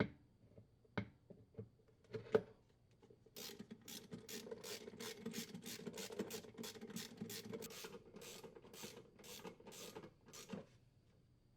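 Agitator mounting screw being threaded into the washer's transmission shaft and tightened with a hand tool: a few light knocks at first, then a steady run of faint scraping, ratcheting strokes about three a second that stop shortly before the end.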